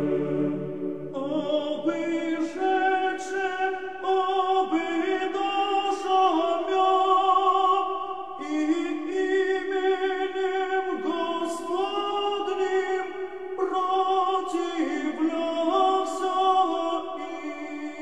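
Russian Orthodox monastic choir singing a traditional chant from Matins a cappella: held chords of several voices that move to a new chord every second or two. A low bass note drops out about a second in.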